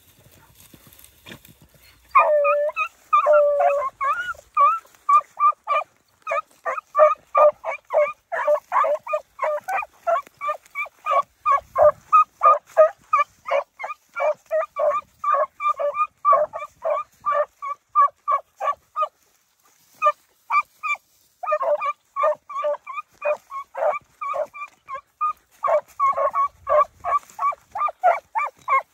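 Beagles baying on a rabbit's scent trail, giving quick, short barks several times a second. The barks start about two seconds in and break off for a couple of seconds about two-thirds of the way through.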